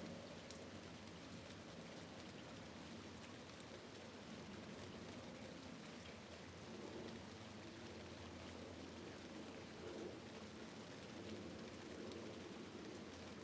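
Rain falling steadily at a window, a faint, even patter with scattered single drops ticking.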